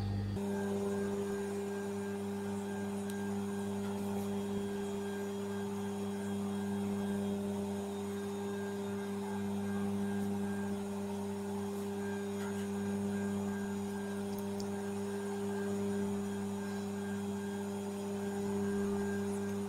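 Steady electrical hum, unchanging throughout.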